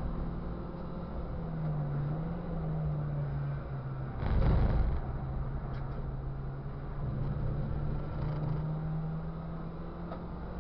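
Ford Fiesta Cup race car's engine running under load, heard from inside the car, its note rising and falling with the throttle. There is a brief loud rumble about four seconds in.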